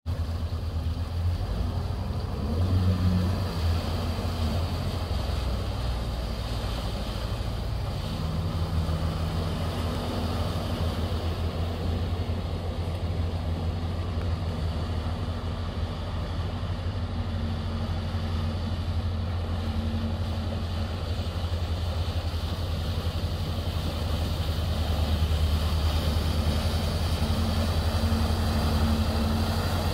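A 100 HP Yamaha outboard motor running steadily under way, a low, even drone whose pitch shifts slightly a few times in the first several seconds.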